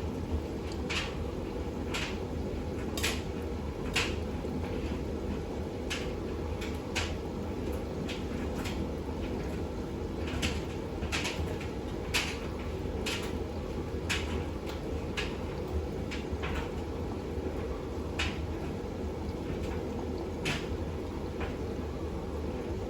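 Bosch WAX32GH1 front-loading washing machine in its final rinse: the drum turning with water sloshing over a steady low motor hum, and short irregular clacks about once a second as the wet load tumbles against the drum.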